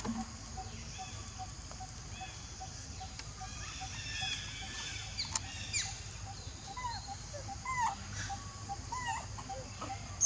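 Outdoor ambience of a high insect drone with a steady pulsing note about two to three times a second. From about four seconds in come many short chirping calls that bend up and down in pitch.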